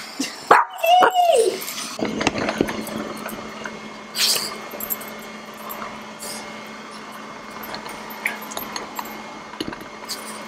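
A dog gives one short, high whine about a second in. Then a LeFant M500 robot vacuum runs with a steady low hum and faint hiss, with scattered clicks and a louder scrape about four seconds in as it moves over the tile floor.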